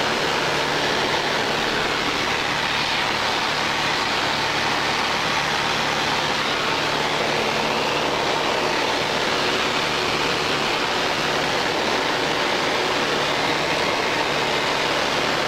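Small plane's engine and propeller in flight, heard from inside the cabin as a steady drone with a low hum.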